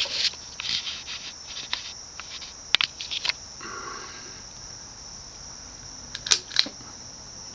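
A ceiling fan's pull-chain switch clicking a few times, in two short groups, over a steady high-pitched whine.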